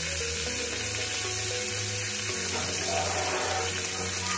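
Background music with a steady run of notes, over the hiss and sizzle of pork belly frying on the hot plate of an electric grill.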